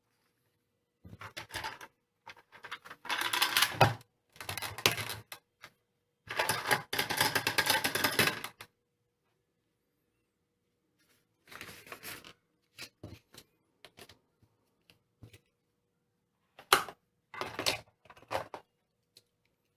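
Hard plastic Hot Wheels drag race track parts clattering and clicking as they are handled and fitted together, in irregular bursts, with a few sharp clicks near the end.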